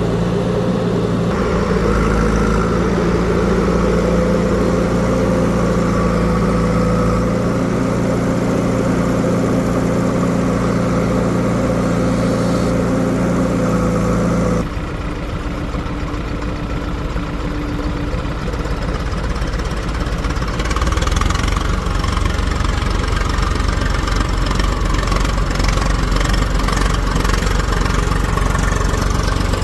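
Heavy diesel engine running steadily at idle. About halfway through the sound switches abruptly to a different engine, which grows louder a few seconds later.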